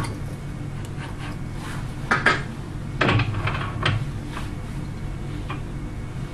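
Metal-on-metal clunks and clinks as the bed stop and fittings of a Harrison L5 metal lathe are moved by hand, about half a dozen separate knocks over a steady low hum.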